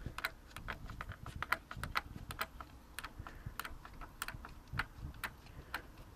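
Ratchet wrench clicking in light, unevenly spaced clicks, about three a second, as a bolt on the engine is backed out.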